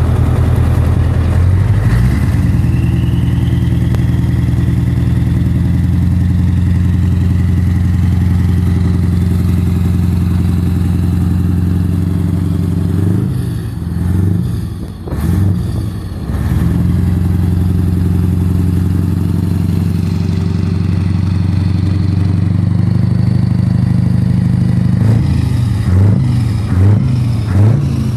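Scania 143 tractor unit's V8 diesel running steadily at idle from its short exhaust pipe under the fuel tank. The note wavers briefly about halfway through, and several short blips of revs come near the end.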